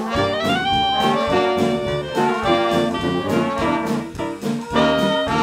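Background jazz music with brass horns playing a melody over a steady beat.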